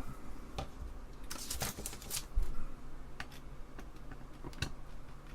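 Hard plastic clicks and light clatter as the parts of an Apple II Plus keyboard are handled. There is a quick cluster of clicks between one and two seconds in, then single clicks now and then.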